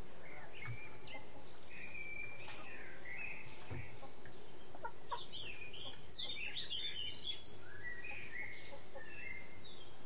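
Spurfowl giving a run of short, clucking calls while feeding, busiest about halfway through, with a few sharp taps mixed in.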